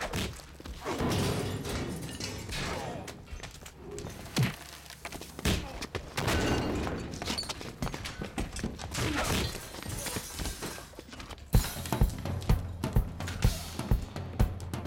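Film soundtrack: a dense, noisy stretch of sound effects and music with sharp hits. About eleven seconds in, a driving drum-kit beat starts, with a heavy kick drum at about three hits a second.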